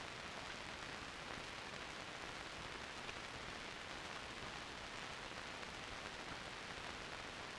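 Steady hiss of an old film soundtrack, with no other sound in it.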